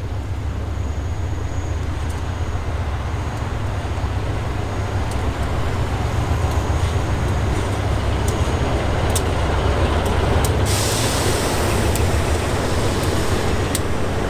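GEA-class GE diesel-electric locomotive arriving with its train, the engine running low and steady and growing louder as it nears, with scattered sharp clicks. About ten seconds in a loud air hiss starts: the air brakes as the train slows into the station.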